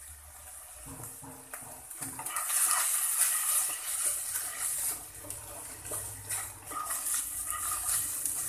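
Wooden spatula stirring and scraping minced chicken breast around a nonstick wok as it fries, over a steady sizzle. The scraping starts about a second in and gets louder about two seconds in.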